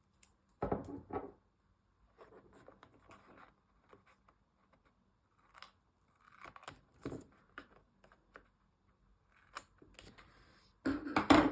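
Small scissors snipping the ends off a strip of washi tape, a few scattered cuts with light paper and tape handling between them. A louder burst of handling noise comes near the end.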